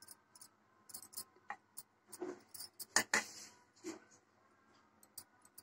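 Faint, scattered clicks and taps of a spoon against an appe pan and a batter bowl as batter is spooned into the pan's moulds.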